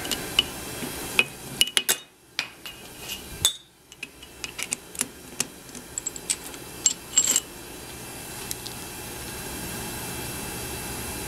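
Clicks and clinks of a chuck key loosening a steel three-jaw chuck and an aluminium workpiece being taken out, with a few sharp ringing metal clinks about seven seconds in. A steady background hum follows for the last few seconds.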